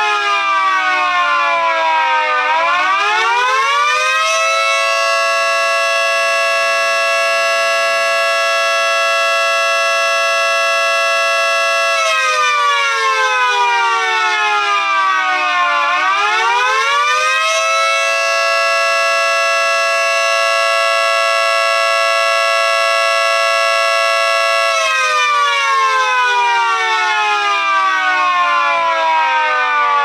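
Miniature 3T22B siren sounding the attack signal: its chord of several tones winds down, climbs back up over about two seconds, holds steady for about seven seconds, then winds down again, the cycle running twice.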